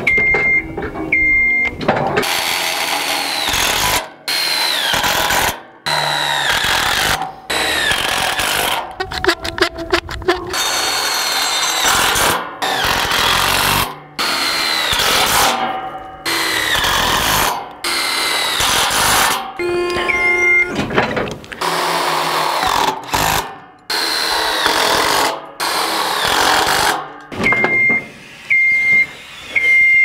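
Cordless DeWalt driver running in about a dozen short bursts, each roughly a second long, driving self-drilling tek framing screws through steel framing members; the whine falls in pitch at the start of several bursts. A steady high beep repeats about once a second at the very start and again near the end.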